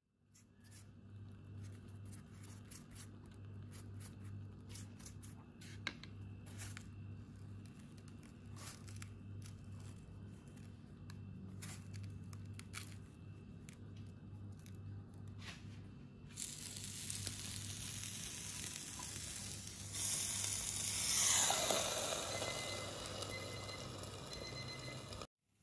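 Light scattered clicks and rustles of puff pastry being handled and rolled in coarse sugar, over a low steady hum. About two-thirds in, a sizzling hiss sets in and grows louder, as buttered pastry cooks in a hot stovetop waffle iron.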